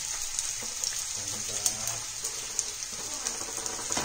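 Sliced onions and shallots frying in hot oil in a pan: a steady sizzle.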